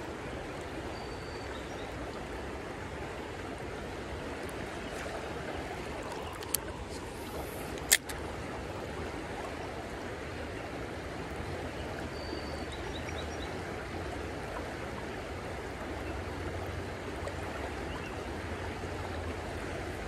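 Creek water running steadily over a rocky riffle. Two sharp clicks break through, one about six and a half seconds in and a louder one about eight seconds in.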